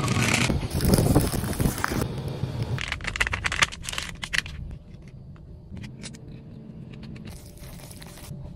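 Plastic food packaging being torn open and crinkled: a cup-noodle sauce sachet, then a snack packet. Dense crinkling and tearing in the first half, thinning to faint, scattered rustles.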